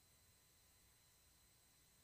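Near silence: only a faint, steady electronic hiss.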